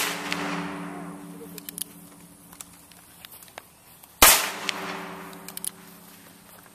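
Two shots from a long-barrelled single-action revolver, one right at the start and one about four seconds later, each followed by a ringing tone that dies away over a second or two.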